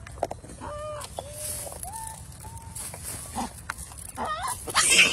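Macaques calling while they feed: several short, arching coos and squeaks, over scattered clicks and rustling of dried corn kernels handled in a plastic sack. A louder harsh burst of noise comes near the end.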